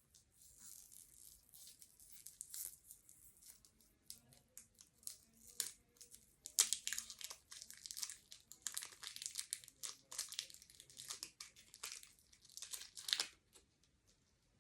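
Plastic packaging being peeled, torn and crinkled by hand in quick, irregular crackles, busiest in the second half.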